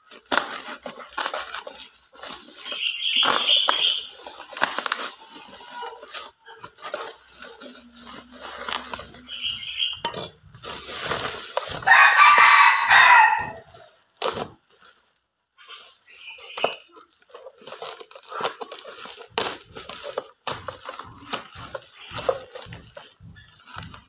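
Plastic wrapping crackling and rustling as a knife cuts open a bubble-wrapped parcel, with clicks and scrapes throughout. About halfway through, a rooster crows once for about a second and a half, the loudest sound.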